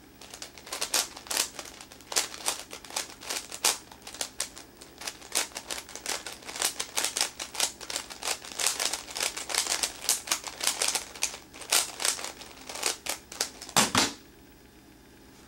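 Rapid, irregular clicking and clacking of a Meffert's 4x4 puzzle cube's layers being turned by hand in a speed solve. Near the end comes a louder thump as the cube is set down and the Stackmat timer is slapped to stop the solve, and the clicking stops.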